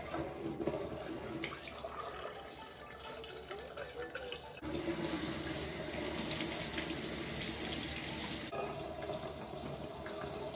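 Kitchen mixer tap running into a stainless steel sink while things are rinsed under the stream. The splashing gets louder and brighter for about four seconds in the middle, then eases back.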